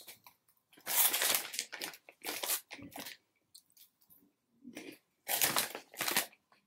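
Crinkling of a plastic snack bag and crunchy chewing of Chester's Puffcorn, in a few irregular bursts, the loudest about a second in and again near the end.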